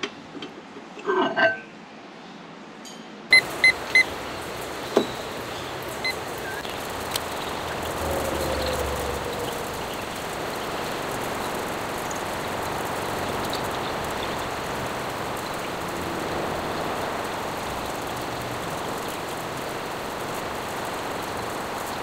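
Handling clatter as a glass mug is lifted out of a microwave oven, then three quick beeps from a digital kitchen timer being set, followed by steady outdoor background noise.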